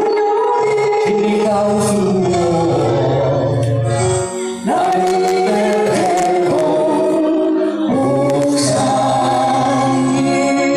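A man and a woman singing a duet into microphones over an amplified karaoke backing track, both voices held on long sustained notes, with a brief break about four seconds in.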